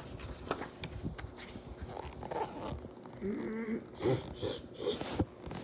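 A person making short dog-like mouth noises, imitating a dog licking, in a series of brief bursts with a short wavering voiced sound among them.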